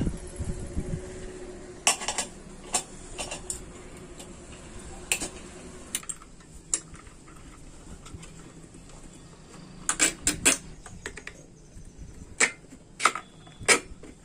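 Scattered sharp clicks and light metallic clinks of hand tools and small parts being handled while a moped's headlight shell is fitted and wired. There is a quick run of several clicks about ten seconds in.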